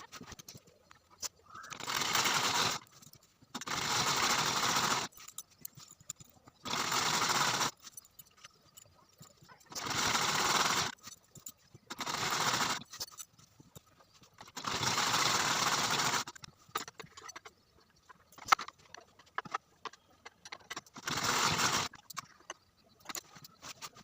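Sewing machine stitching in seven short runs of one to two seconds each, stopping and starting with quiet pauses between runs.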